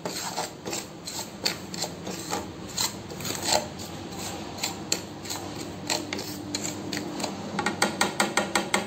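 Wooden spatula scraping and stirring dry spice powders and roasted seeds around a nonstick pan in repeated rasping strokes, which come faster near the end.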